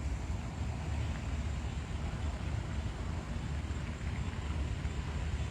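Steady low background rumble, with no distinct sounds standing out.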